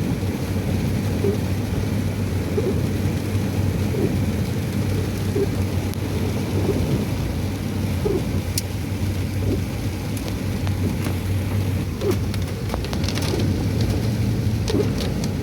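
Steady low rumble of a vehicle engine running under a continuous hiss of heavy rain, with scattered light taps near the end.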